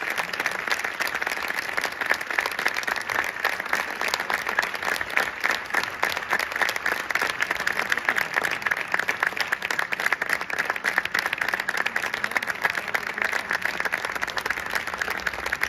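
Audience applauding: many people clapping steadily and without a break.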